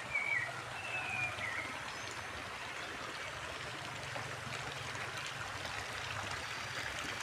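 Stream water flowing steadily, with a few short high chirps in the first second and a half.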